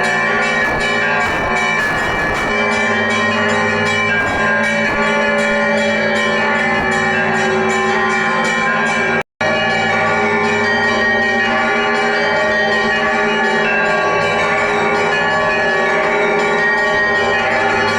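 Festive Orthodox bell ringing: many bells of the Great Lavra Bell Tower, large and small, struck over and over so their tones overlap in a continuous peal. The sound cuts out for a split second about nine seconds in.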